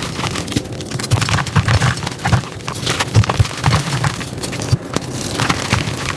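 Bare hands squeezing and crumbling reformed gym chalk into powder: dense, irregular crunching and crackling as the chalk chunks break apart, with soft thuds of handfuls pressing into the powder.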